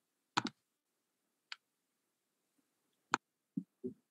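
A few sharp computer mouse clicks: a quick double click about half a second in, then single clicks near one and a half and three seconds, followed by two short, soft low thumps near the end.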